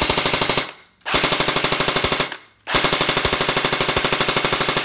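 Cyma CM.037 airsoft electric gun (AEG) firing on full auto: bursts of rapid, evenly spaced shots, the piston slamming forward with each one. One burst ends about half a second in, a second lasts a little over a second, and a third starts midway and keeps going.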